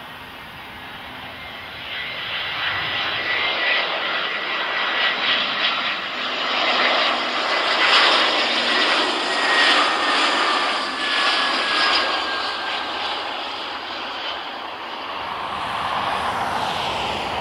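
Airbus A320-214's CFM56 turbofan engines as the airliner lands, growing louder to a peak about eight seconds in, with a high whine that falls slightly in pitch. It then fades and swells a little again near the end.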